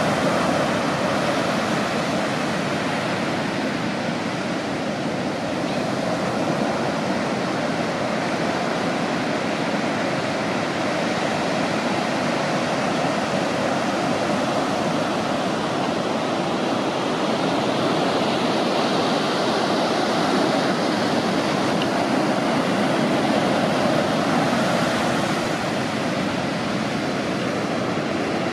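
Ocean surf breaking and whitewater washing up a sandy beach: a steady rush that swells a little about two-thirds of the way through.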